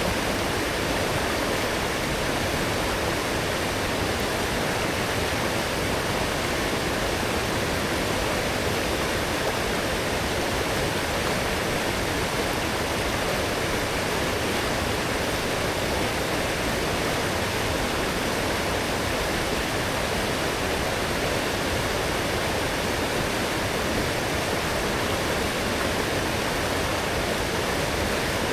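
A strong forest stream, swollen after heavy rain, rushing and splashing in a steady, unbroken flow.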